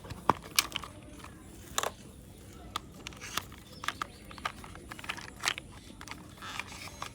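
Irregular small clicks and knocks of hard plastic parts being handled and pressed together: wheels being fitted onto a plastic toy excavator.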